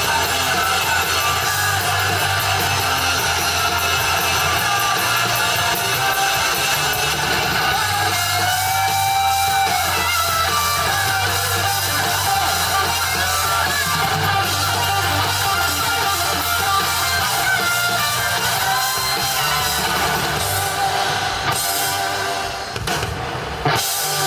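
Live rock band playing loud electric guitar and drums, with some singing. Near the end the music briefly drops away, and then a single sharp hit lands.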